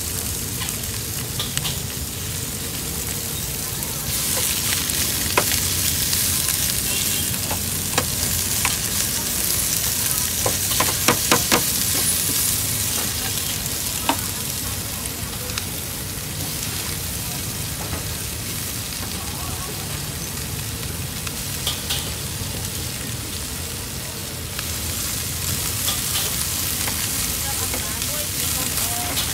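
Food sizzling as it is stir-fried in a hot pan, the sizzle growing louder for a stretch and again near the end. Sharp metal clicks of a utensil striking the pan come every few seconds, with a quick run of them about eleven seconds in.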